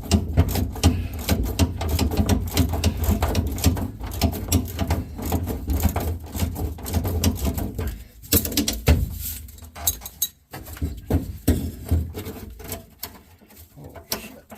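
A ratchet wrench clicking rapidly as a stubborn fastener is worked loose, then scattered clicks and knocks of metal parts from about eight seconds in.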